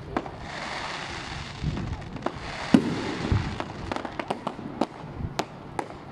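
Fireworks going off: a rapid run of sharp cracks and pops mixed with deeper booms, the loudest bang a little under three seconds in.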